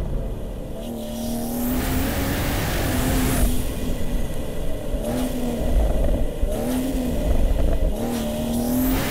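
BMW M240i's turbocharged straight-six, heavily tuned, driven hard: the engine note rises and falls again and again as it accelerates and lifts off, with swells of rushing noise.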